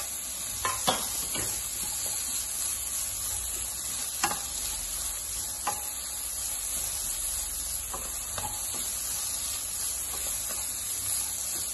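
Sliced onions and chicken pieces sizzling steadily in butter in a nonstick pan, stirred with a wooden spatula that scrapes and knocks against the pan several times.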